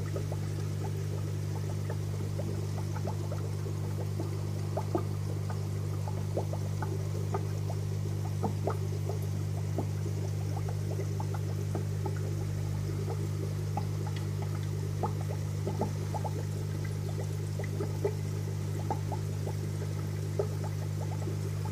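Air-driven sponge filter in an aquarium bubbling: an irregular stream of small bubbles popping and gurgling, over a steady low hum.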